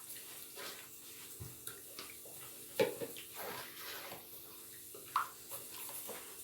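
Freshly squeezed lemon juice being poured into a bowl of sugar and lemon peel, a liquid pouring sound with a couple of sharp knocks from the container, about three and five seconds in.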